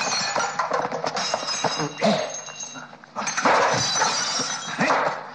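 Crockery and metal kitchenware crashing and clattering in a fight, with ringing clinks of steel bowls and pans. The clatter dips briefly and starts again loudly about three seconds in, with a few short shouts between the crashes.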